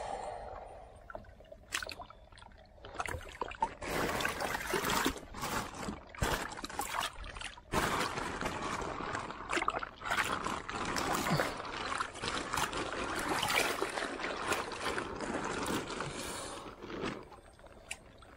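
Shallow pond water sloshing and splashing with a plastic bag crinkling, as a large carp is slid into the bag underwater, irregular and fairly loud, starting about three seconds in and easing off near the end.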